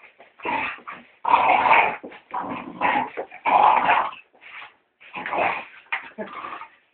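Staffordshire terrier growling in a quick run of short bursts, about eight of them, while it bites and tugs at a house brush.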